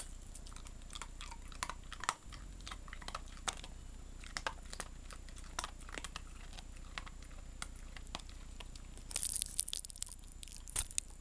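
A dog crunching and chewing on a hard candy cane, biting chips off it in irregular crisp crunches. Near the end there is a brief burst of rustling.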